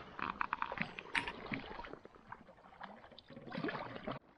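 A solo pack canoe being paddled with a double-bladed paddle. A quick run of knocks comes in the first second, with a louder one just after, as the paddle meets the hull, and water splashes from the paddle strokes.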